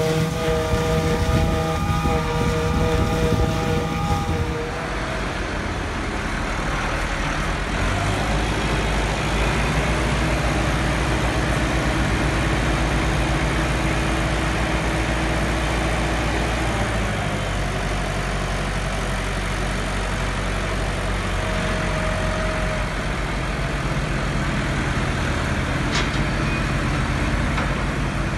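For the first few seconds, a Massey Ferguson 7720S tractor running a JF FCT1050 trailed forager, chopping grass, with a steady whine of several held tones. Then a classic Massey Ferguson tractor's diesel engine runs steadily while its tipping trailer's body is raised to unload silage, the engine note shifting about a third and about halfway through. A brief click sounds near the end.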